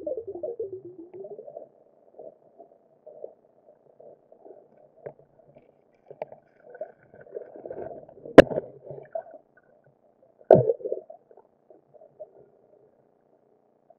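Muffled underwater sound heard through a camera's waterproof housing: water sloshing and gurgling against it in uneven patches. Two sharp knocks stand out, the loudest about eight seconds in and another about two seconds later.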